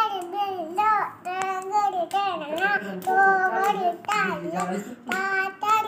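A little girl singing in a high voice, holding and bending notes in short phrases.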